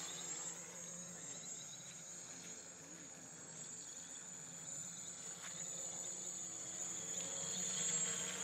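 AeroQuad Arduino quadcopter in flight: a steady buzzing whine from its electric motors and propellers, some way off, getting louder near the end.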